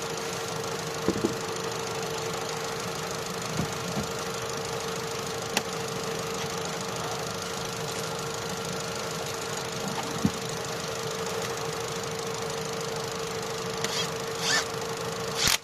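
Opel Astra J 1.4 four-cylinder petrol engine idling steadily with a constant whine, with a few scattered clicks. It is running after a misfire fault, with the scan tool now reading zero misfires on every cylinder.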